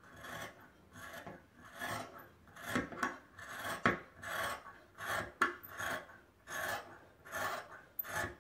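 Scissors cutting through two layers of trouser fabric: a steady run of snips, about two a second.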